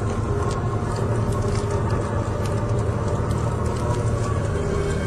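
Steady low rumbling drone with a few faint held tones, the sustained bed of a dark dramatic background score.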